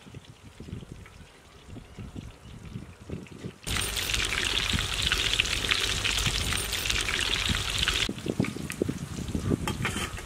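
Battered chicken pieces deep-frying in hot oil in a kadai: a loud, dense sizzle that starts suddenly a little under four seconds in and cuts off about eight seconds in. Before and after it there are only faint rustles and a few light clicks.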